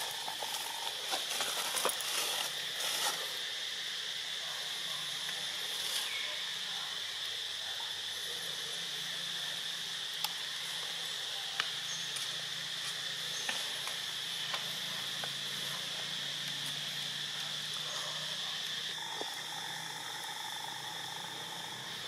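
Steady, high-pitched insect drone, with a few faint clicks.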